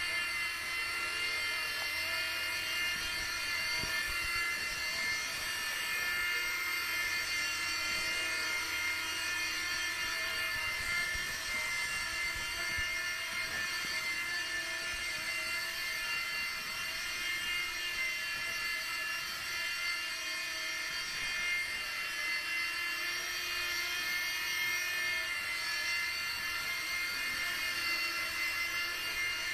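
E-flite Blade mSR micro RC helicopter's small electric motors and rotors whining steadily in flight. The whine is made of several high pitches that waver slightly as the throttle shifts.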